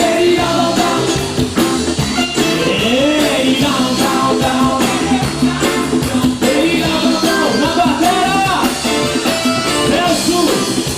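Live band playing an upbeat pop-rock song: a steady drum and bass beat under a lead melody that bends up and down, with no words sung.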